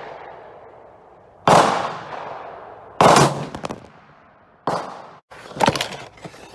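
Rifle shot from a .300 Win Mag Ruger American Go Wild fitted with a muzzle brake, about a second and a half in, with a long echoing tail. A second loud bang follows about three seconds in, with rattling after it. Then come knocks and handling sounds as the phone filming is toppled by the brake's sideways muzzle blast and picked up.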